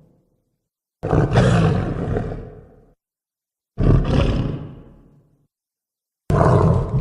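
Homemade monster roar sound effects for Squidasaurus Rex: three separate roars, each starting abruptly and fading away over about two seconds, with dead silence between them.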